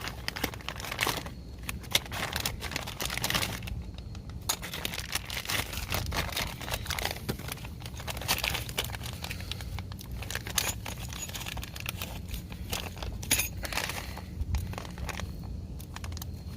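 Plastic crinkling and rustling with many small clicks and knocks, as small parts and their packaging are handled.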